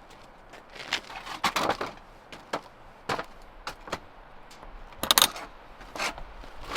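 A series of irregular knocks and clicks, like gear and fittings being handled. The loudest cluster comes about five seconds in.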